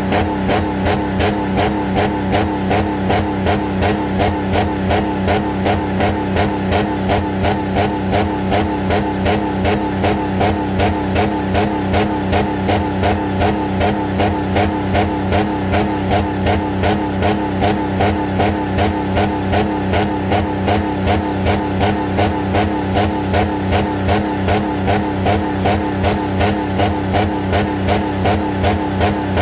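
Jeep Commander engine running with water in its oil pan instead of oil, with an even pulse about twice a second.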